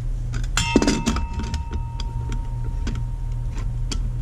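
Copper pipe and fitting clinking together as the joint is assembled: a sharp metallic clatter about half a second in leaves a clear ringing tone for about three seconds, followed by light clicks of handling.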